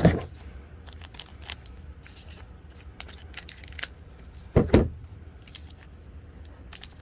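Foil wrapper of a trading card pack being torn open and crinkled, with scattered small crackles and a dull thump about two-thirds of the way through.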